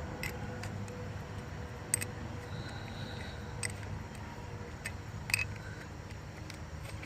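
Hand tools working a car battery terminal give about four light, sharp clicks, a second or two apart, over a low steady hum.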